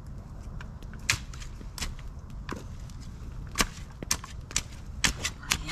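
Hand shovel digging in soil: about a dozen sharp knocks and scrapes of the blade at uneven intervals, coming thicker and louder in the second half.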